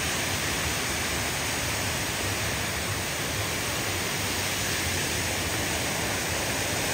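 Steady rushing noise of water falling over a waterfall.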